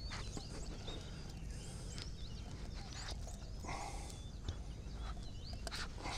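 Small birds chirping and twittering over a steady low rumble of wind on the microphone, with a few short clicks and a brief rustle about four seconds in.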